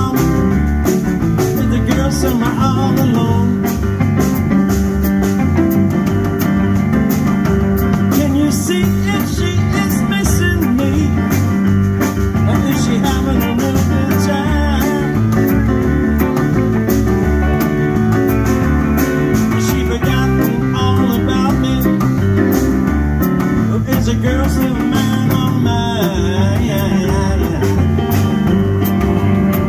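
A live blues band playing a song on drum kit, upright bass, stage piano and electric guitar.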